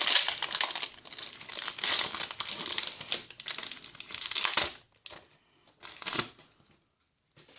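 Foil wrapper of a Kaladesh Magic: The Gathering booster pack crinkling loudly as it is handled and opened. The crinkling stops after about four and a half seconds, leaving a few short rustles.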